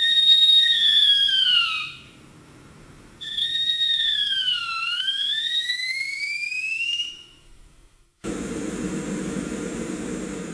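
Two high whistling tones. The first is held, then falls in pitch. The second dips and rises again over several seconds. They are followed by a steady hiss with a low rumble under it that starts abruptly near the end.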